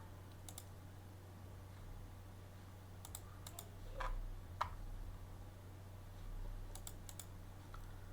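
Faint, scattered clicks from working a computer's keyboard and mouse: a pair about half a second in, a few more between three and five seconds, and a quick run of three near seven seconds, over a faint steady low hum.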